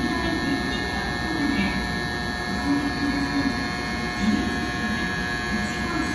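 Platform departure buzzer for a Shinkansen train: a steady electronic tone of several pitches sounding together, held without change, the signal that the train is about to leave.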